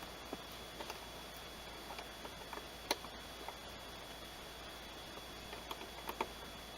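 Scattered small plastic clicks and taps as an LED bulb and interior light housing are handled and fitted. The sharpest click comes about three seconds in, over a faint steady hiss.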